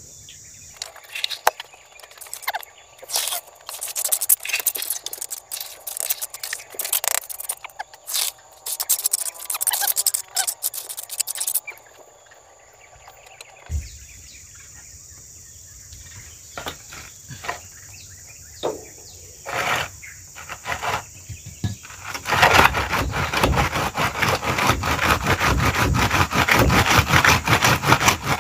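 Repeated scraping and knocking of a tool working through cement mix, in irregular strokes that turn dense and loud for the last six seconds or so. A steady high insect drone runs underneath.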